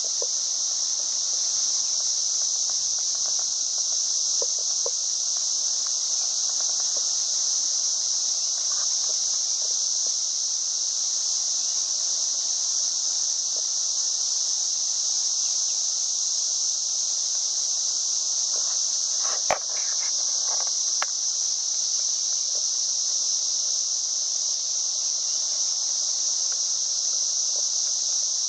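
Steady, high-pitched chorus of insects such as crickets, an unbroken shrill drone, with a single sharp click about two-thirds of the way through.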